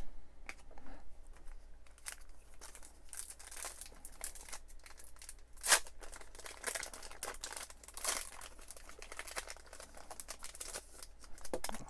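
Foil wrapper of a baseball-card pack being crinkled and torn open by hand, with many small crackles and one sharp, loud rip near the middle.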